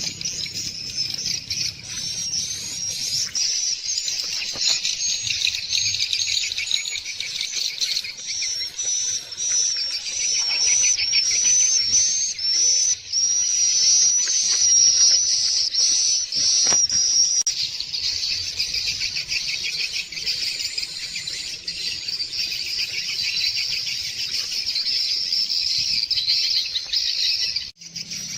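Birds chirping and chattering in a dense, rapid stream of high notes, with a run of sharp repeated calls in the middle.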